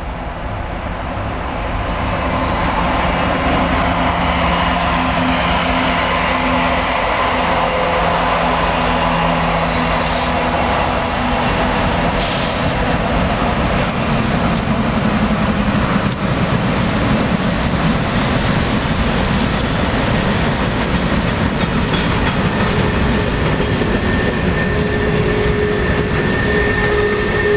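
Norfolk Southern freight train passing close by: a string of diesel locomotives, mostly GE units, running past with a steady engine drone that grows louder over the first few seconds. Then the wheels of the train roll by, with scattered sharp clicks over the rails.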